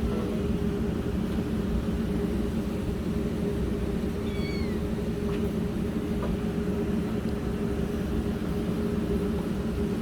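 A kitten gives one short, high meow about four seconds in, over a steady low hum.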